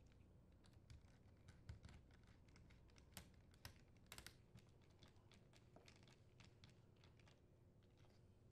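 Faint, irregular clicks and ticks of a flat-head screwdriver turning the screws of worm-drive hose clamps on a dishwasher drain pump's hose ports.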